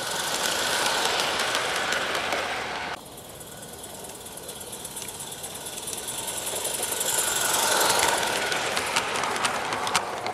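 A G-scale live-steam locomotive, a Roundhouse Lady Anne, running past close by with rapid chuffing and steam hiss. The sound drops off suddenly about three seconds in, then builds again as the engine approaches, with sharp clicks from the wheels over the track near the end as it passes.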